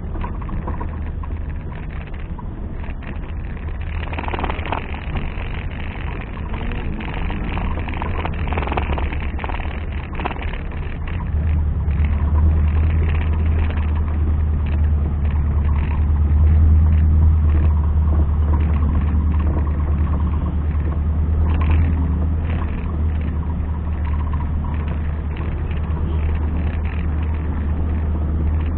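Off-road 4x4 engine running, a steady low drone that grows louder about eleven seconds in and stays strong.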